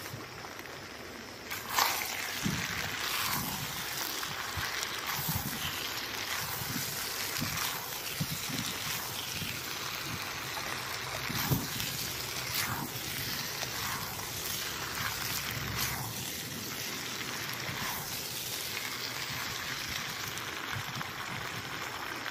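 Chicken, potato and peppers sizzling in a pan coated in braising sauce while being stir-fried, with repeated short scrapes and knocks of a spatula against the pan. The sizzle grows louder about two seconds in.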